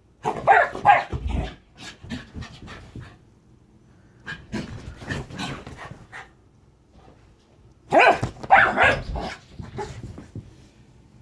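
Rat terrier 'talking': three bouts of barks and whining, grumbling vocal sounds, each lasting a second or two.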